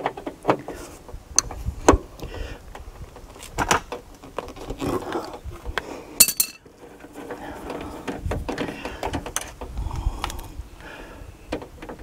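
Screwdriver backing out the latch screws on a car door's edge: scattered small metal clicks and scrapes of the tool and screws, with a brief high-pitched sound about six seconds in.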